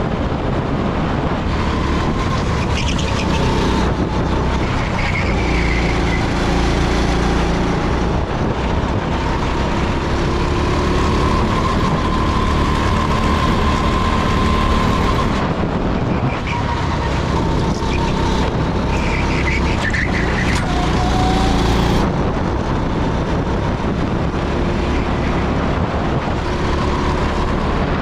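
Rental SuperKart engine running hard, heard from on board the kart as it laps at about 60 km/h. The engine note holds steady, with small rises and dips in pitch.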